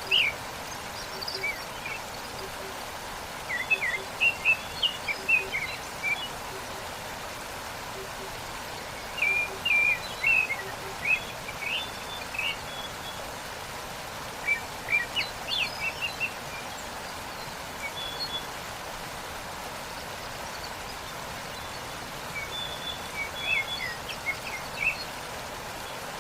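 Steady rush of a waterfall with songbirds chirping over it in clusters of quick calls every few seconds.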